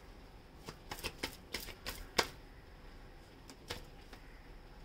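Tarot cards being handled and laid down on a table: a quick run of sharp taps and clicks over the first couple of seconds, the loudest just after two seconds in, then two more taps near four seconds in.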